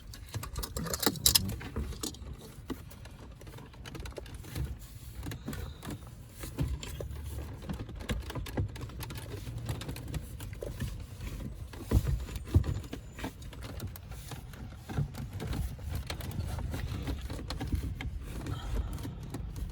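Irregular rustling, clicks and knocks of wiring harnesses and plastic connectors being handled and pushed into a tight space behind a car dashboard, with one sharper knock about twelve seconds in.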